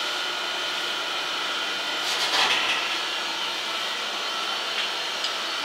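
Acer Supra-618II surface grinder running with its diamond wheel spinning: a steady whirring hum with several fixed tones, and a brief louder hiss about two seconds in.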